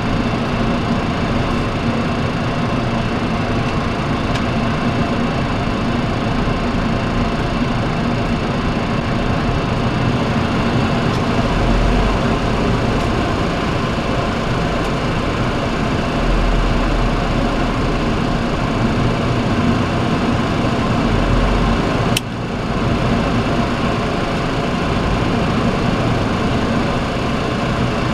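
Cockpit noise of a Boeing 737-300 taxiing: the steady hum of its CFM56 engines at idle mixed with air-conditioning fan noise. A single sharp click comes about three-quarters of the way through, followed by a brief dip in level.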